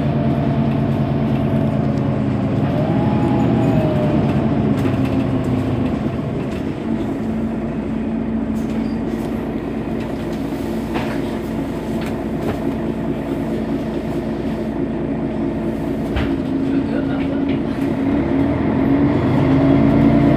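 Mercedes-Benz Citaro facelift city bus idling at a stop: a steady engine hum, with a couple of short clicks partway through. The engine note grows slightly louder near the end.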